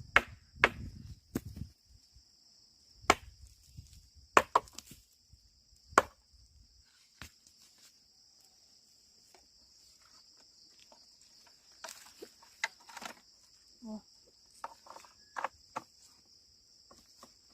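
Sharp knocks, a few in the first six seconds and another run from about twelve to sixteen seconds in, some with a low rumble under them, over a steady high chirring of crickets.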